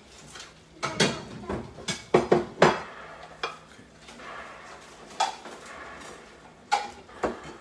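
Cutlery and metal kitchen utensils clattering: a quick run of sharp clinks and knocks in the first three seconds, then a few single knocks spaced out after that.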